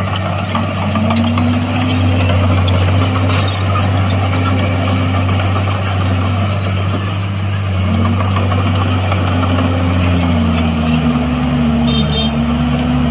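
Diesel engine of heavy earthmoving machinery running, loud and continuous, its engine speed dipping and rising every few seconds.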